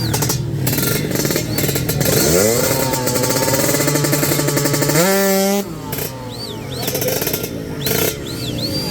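Drag-race motorcycles launching and accelerating hard at full throttle. The engine pitch climbs, jumps up again with a gear change, then falls away quickly just past halfway.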